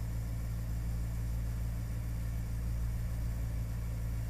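A steady, unchanging low hum with no other events.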